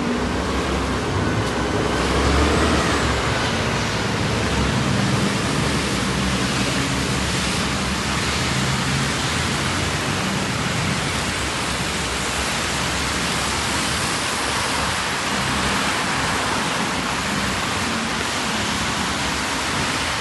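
Strong wind blowing, a loud, steady, even rush. A vehicle engine hums underneath for about the first half, then fades.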